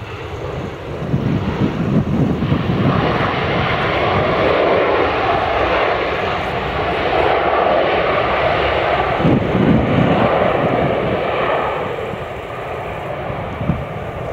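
Boeing 767-300ER's jet engines on the landing rollout: a loud, even rushing roar that swells about two seconds in as reverse thrust builds, holds, then eases off near the end as the airliner slows.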